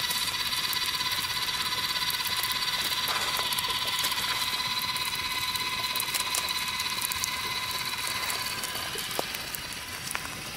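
Campfire coals hissing and crackling under meat sizzling on skewers, with scattered sharp pops; the hiss eases off a little near the end.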